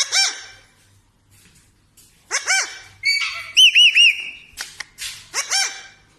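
Pet parrot calling: a short whistled call at the start, then a run of whistled calls and squawks a couple of seconds in, including three quick rising-and-falling whistle notes and a brief harsh screech.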